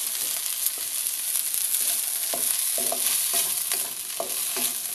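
White rice sizzling in hot oil in a steel wok. A wooden spatula stirs and scrapes it against the wok in repeated strokes, which come quicker from about halfway through.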